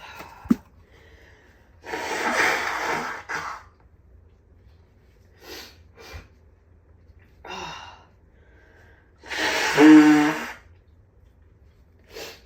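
A person sneezing hard twice, about two seconds in and again about ten seconds in, with quieter breaths between: a dust-allergy sneezing fit.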